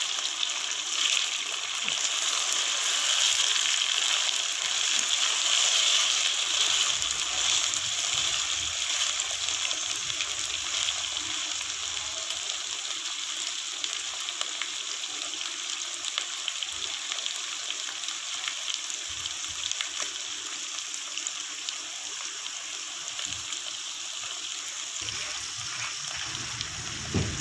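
Chicken pieces with chopped tomatoes and green chillies sizzling steadily as they fry in hot fat in a pan, easing a little quieter toward the end.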